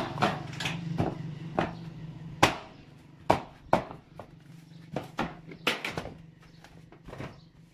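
Footsteps on corrugated metal roofing sheets: irregular sharp clanks, some ringing briefly, as the sheets take each step.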